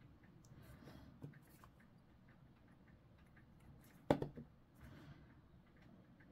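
Faint clicks and taps of small plastic miniature parts being handled and pressed together in the fingers, with one sharper click about four seconds in.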